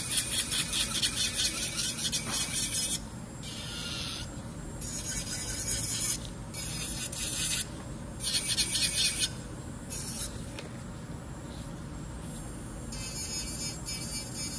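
Electric nail drill bit grinding an acrylic nail: a rapid scratchy rasp in repeated short passes that stop and start several times, with a longer pause a little after the middle.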